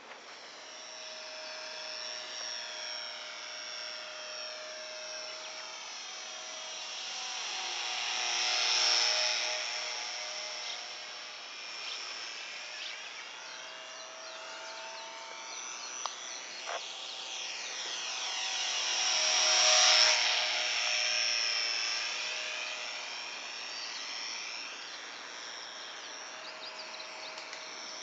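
Small radio-controlled park-flyer plane's motor and propeller whining in flight. It passes close twice, about a third of the way in and again about two thirds of the way in, getting louder then fading, its pitch shifting as it goes by.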